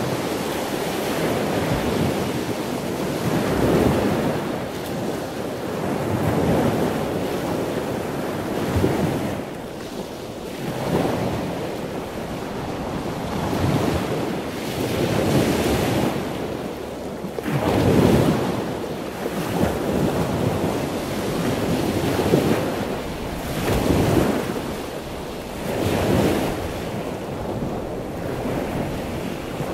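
Wind buffeting the microphone over the rush of choppy sea and the boat's churning wake, swelling and easing every couple of seconds.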